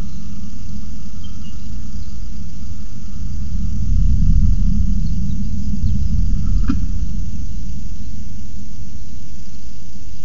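Steady deep rumble that swells for a couple of seconds about four seconds in, with a single short sharp click near the end of the swell.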